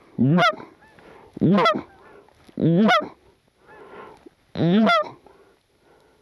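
Goose call blown close by in four separate honks, each starting low and breaking upward in pitch, with short pauses between them.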